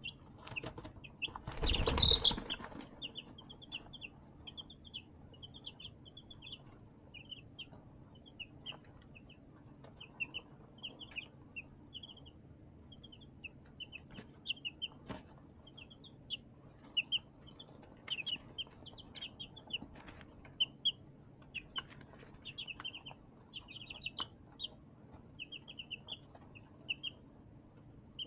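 Young chicks peeping in short, high chirps throughout, with scattered light clicks. A brief loud rustle about two seconds in is the loudest sound.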